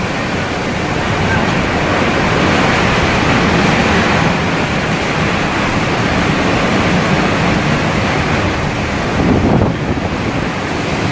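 Hurricane-force wind and driving rain, a loud steady rush of noise that swells briefly about nine and a half seconds in.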